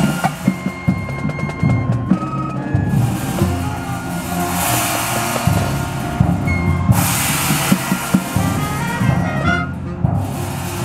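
Marching band in a drum-heavy percussion passage: dense drum strikes, with two bright crashing swells a little under halfway through and again about two-thirds through, over a few held keyboard notes.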